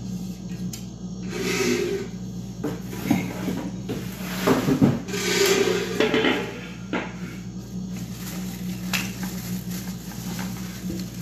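Thin plastic wrapping rustling while the parts of a new electric grill are handled: the ribbed grill plate and plastic pieces knock and clatter lightly a few times. A steady low hum runs underneath.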